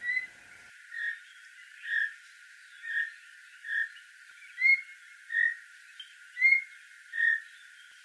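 A wild animal calling: about nine short, evenly paced notes, a little over one a second, some flat and some ending in a slight upward flick.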